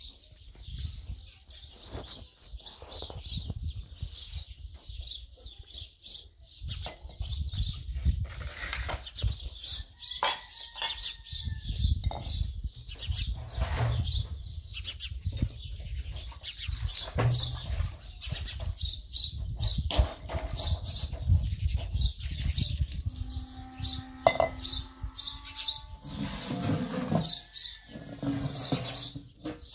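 Small birds chirping in quick, irregular bursts over a steady low rumble, with one short pitched call about 24 seconds in.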